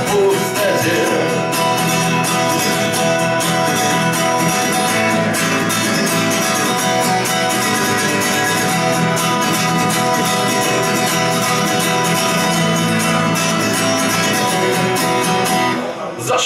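Steel-string acoustic guitar strummed in a steady rhythm, an instrumental passage between sung lines, with a brief drop in loudness near the end.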